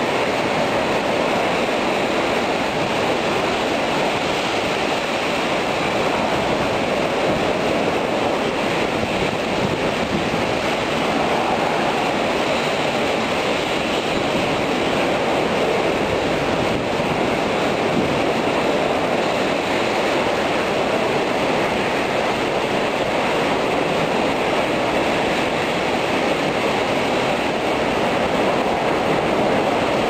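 Heavy typhoon rain and strong wind making a steady, loud rushing noise.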